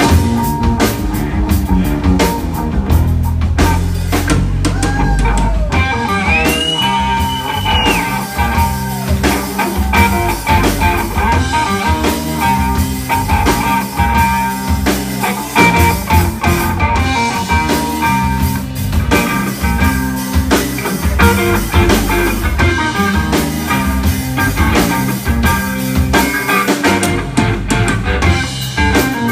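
Live electric guitar, electric bass and drum kit playing an instrumental funk-blues groove, the guitar taking the lead over a steady drum beat and bass line. About six seconds in a high note bends up and is held for a moment before falling back.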